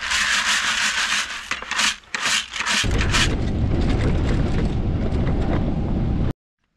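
Wind buffeting the microphone and the low rumble of an open side-by-side utility vehicle driving along a dirt track, starting about three seconds in and cutting off abruptly near the end. Before it comes a harsh hiss with a few sharp scrapes.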